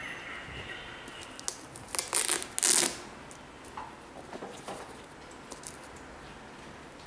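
Hook-and-loop (Velcro) strap on an Air Jordan 8 sneaker being pulled open, two short loud rips about two seconds in, followed by lighter handling rustles and clicks.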